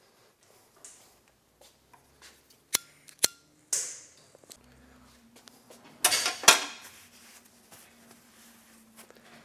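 Metal tools and parts being handled in a machine shop: two sharp metallic clicks with a short ring about three seconds in, a brief hiss, then a louder clattering rattle around six seconds. A low steady hum sets in from about halfway.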